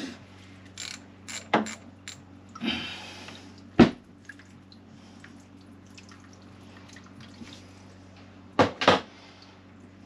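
Scattered sharp metallic clicks and knocks of a ratchet and fasteners being worked loose on the raw-water pump cover of a marine diesel engine, the loudest knock about four seconds in and a quick pair near the end, over a steady low hum.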